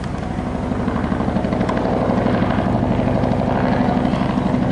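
Military helicopter flying low and close, its rotor beating in a rapid pulse that grows louder.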